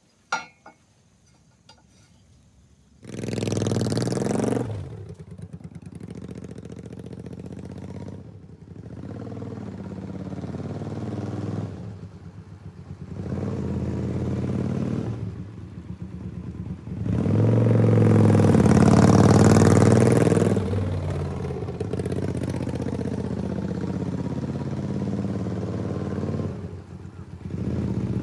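Honda Magna 250 V-twin engine running through an aftermarket Easyriders exhaust. It comes in suddenly about three seconds in and is revved up from idle several times. The loudest and longest rev comes about two-thirds of the way through, then the pitch falls back to a steady idle.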